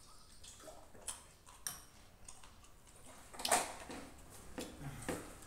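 Close-up eating sounds: chewing and wet mouth smacks, with small clicks of a metal spoon scooping rice from a plate. One louder sound comes about three and a half seconds in.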